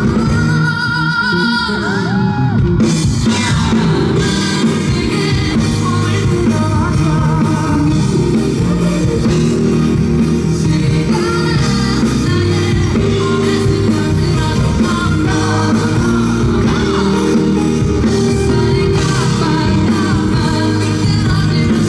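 Live pop-rock band music with singing, drums and guitar; a wavering, vibrato melody line stands out in the first few seconds.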